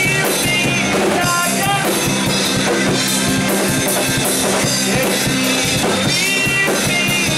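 Live rock band playing: a singer over electric guitar, bass guitar and drum kit.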